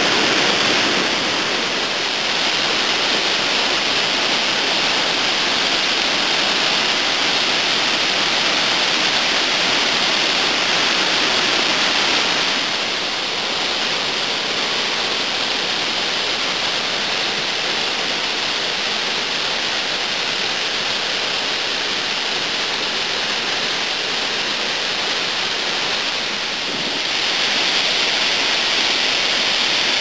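Mountain waterfall running at peak snowmelt runoff: a loud, steady rush of falling water.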